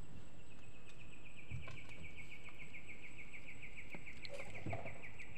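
A wild animal's rapid, evenly pulsed high trill, running steadily and easing slightly lower in pitch, over a faint constant high whine, with a few soft knocks.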